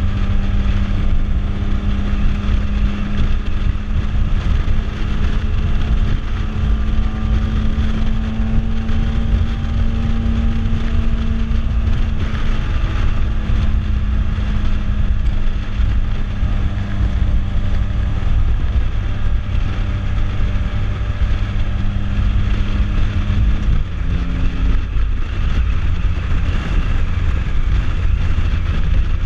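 Can-Am Spyder F3-S three-wheeled motorcycle's inline three-cylinder engine running at a steady cruise under heavy wind rush on the microphone. The engine note shifts once, about three quarters of the way through.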